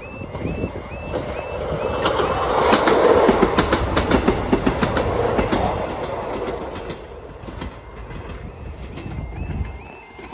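A Class 158 diesel multiple unit passing over a level crossing. Its sound swells to a peak about three seconds in, with a fast clatter of wheels over the rail joints, then fades away. The crossing's alarm warbles in short repeated rising tones, about two a second, heard at the start and again near the end.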